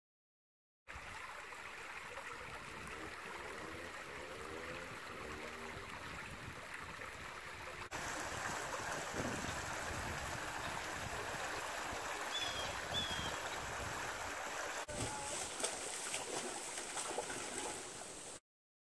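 Shallow river water running and trickling over rocks, cutting abruptly between takes. There are two short high chirps around twelve and a half seconds in, and uneven splashing in the last few seconds.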